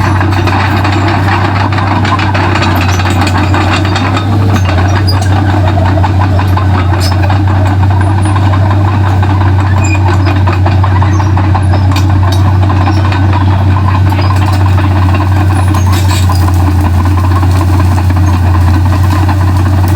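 Komatsu D31P bulldozer's diesel engine running steadily with a deep, constant hum while working, getting slightly louder about four seconds in.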